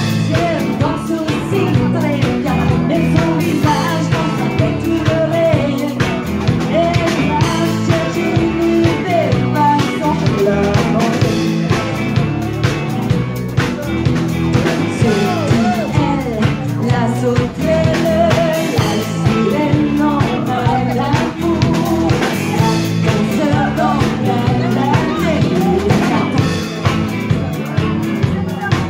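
Live band playing an up-tempo song, a woman singing into a microphone over drums and guitar, with a steady drum beat.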